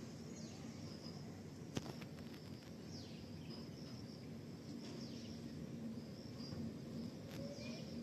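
Outdoor ambience of birds and insects chirping: high thin chirps and several short calls sliding downward in pitch, over a low steady rumble. A single sharp click about two seconds in, and a fainter one near the end.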